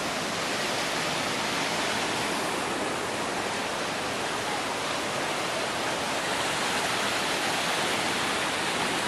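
Mountain creek rushing and splashing over boulders in small cascades: a steady, unbroken rush of whitewater.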